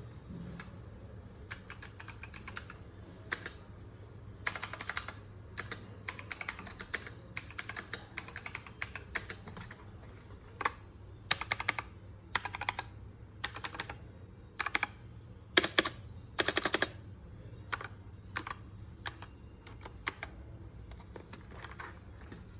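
EvoFox Katana X2 TKL mechanical keyboard with linear red switches being typed on, in irregular runs of keystrokes. A few heavier, louder strokes stand out in the middle.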